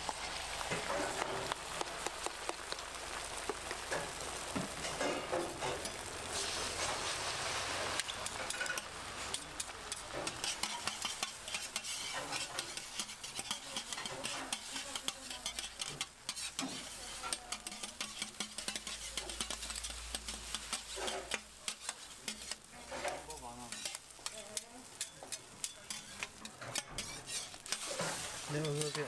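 Egg mixture sizzling on a flat steel griddle, with a metal spatula and tongs scraping and clicking against the griddle surface throughout.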